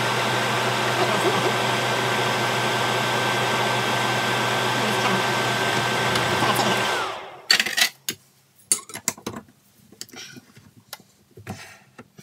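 Metal lathe running steadily with a constant whine and hum while the chuck spins. It is switched off about seven seconds in and winds down quickly. Scattered metallic clicks and clanks of tool handling follow as a spanner is put to the tool post.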